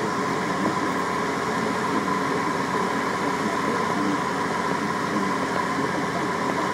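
John Deere 6900 tractor's diesel engine running steadily under load while pulling a plough, heard from inside the cab, with a steady high whine over the engine drone.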